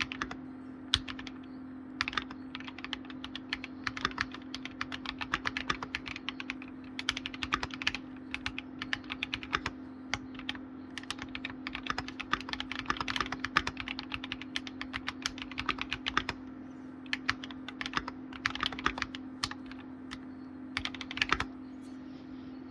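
Typing on a computer keyboard: quick runs of key clicks in bursts with brief pauses, stopping about a second before the end. A steady low hum sits underneath.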